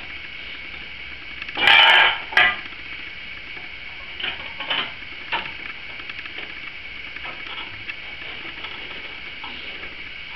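Hand-handling noise as a battery-maintainer cable is fitted at a motorcycle's battery: a loud rasping rattle about two seconds in, a shorter one just after, then a few light clicks.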